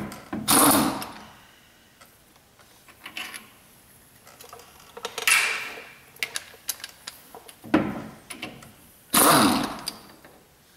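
Differential carrier and ring gear of a Ford 9.75-inch rear axle being worked loose by hand from the axle housing: a few short bursts of metal scraping and clunking, with small clicks in between.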